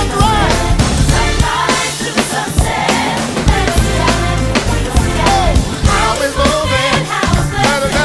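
A song with singing over a drum kit and heavy bass, with a steady beat.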